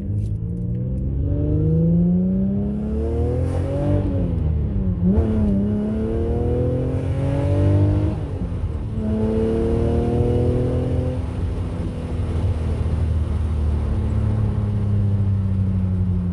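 Nissan G35 coupe's 3.5-litre V6, breathing through resonated ISR test pipes and an HKS exhaust, accelerating through the gears. The revs climb and drop sharply at upshifts about four and eight seconds in, climb once more, then fall slowly as the car eases off.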